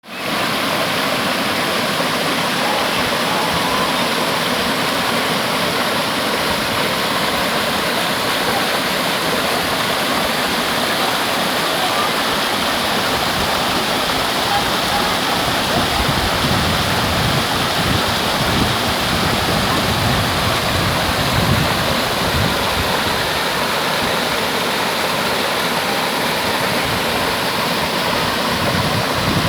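Waterfall pouring down in a steady, loud rush of water, with a deeper rumble coming and going about halfway through.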